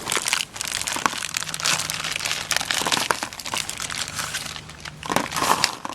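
Plastic blind-bag wrappers crinkling and rustling as packs of toy figures are torn open and unwrapped, with a faint steady hum underneath.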